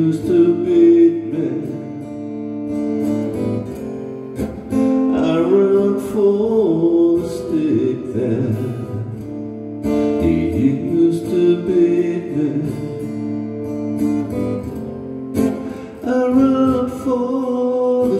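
Live solo performance: a man singing in phrases over a strummed acoustic guitar.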